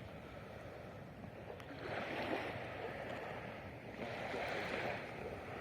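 Rushing water, a steady wash that swells and eases every couple of seconds.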